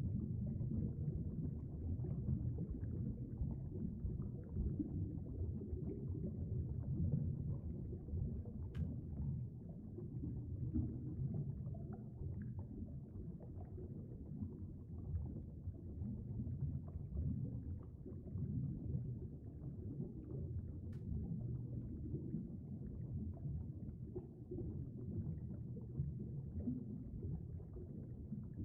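Muffled, low, churning rumble of water moving around a submerged camera, heard through its waterproof housing, with two brief clicks about twelve seconds apart.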